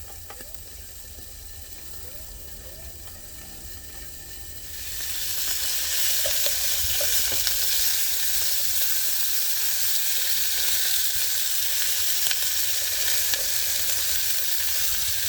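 Food frying in a hot pan: a loud, steady sizzle starts suddenly about five seconds in. Before that there is only a low hum.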